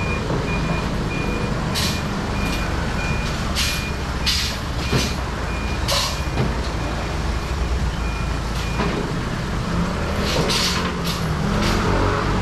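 A truck reversing, its back-up alarm giving a steady series of evenly spaced beeps that stop about nine seconds in, over the engine's steady rumble, with a few short bursts of hiss.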